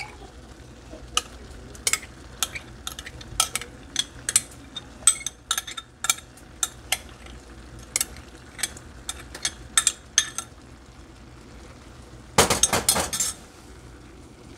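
A metal spoon clinking and scraping against a glass measuring cup, a dozen or more sharp clinks, as a thick ketchup sauce is scraped out into a skillet of browned ground turkey. Near the end, about a second of louder, denser scraping and rattling as a wooden spoon begins stirring it in the stainless pan.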